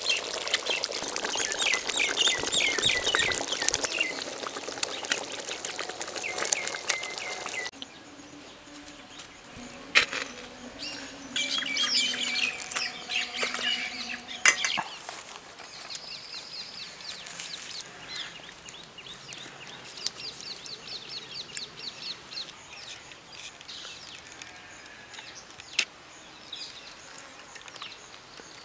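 Small birds chirping and twittering in quick, repeated short calls, busiest in the first several seconds and thinning out after, with a couple of sharp clicks.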